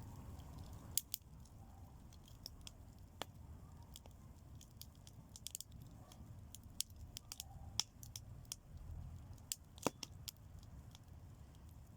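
Bonfire burning fresh green fern, crackling faintly with irregular sharp pops.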